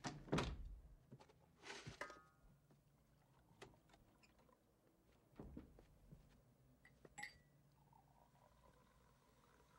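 Quiet room with a few sudden thunks and clicks from a door being handled, the loudest just after the start and another about two seconds in, then lighter ticks and a sharp click about seven seconds in.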